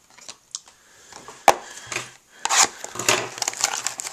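Trading cards slid and set down on a wooden tabletop, with one sharp tap about one and a half seconds in. From about halfway through comes the crinkle of a foil-wrapped card pack being picked up and handled.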